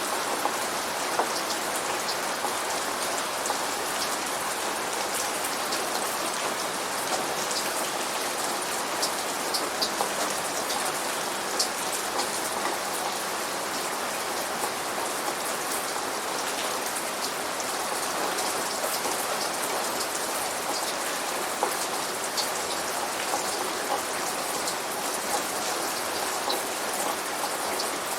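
Steady rain falling, with frequent sharp ticks of individual drops striking close to the microphone and no thunder.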